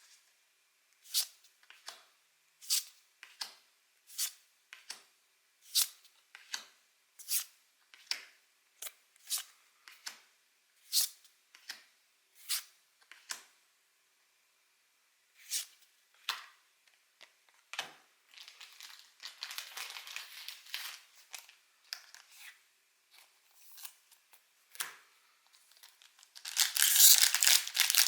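Pokémon trading cards slid one by one off a stack, each making a short crisp swish about every three-quarters of a second. Then the foil wrapper of a booster pack crinkles, loudly near the end, as it is opened.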